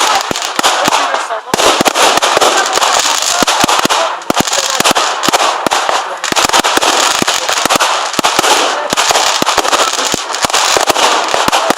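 Aerial fireworks going off in a dense barrage: many sharp bangs in quick, irregular succession over continuous crackling, easing briefly about a second, four seconds and six seconds in.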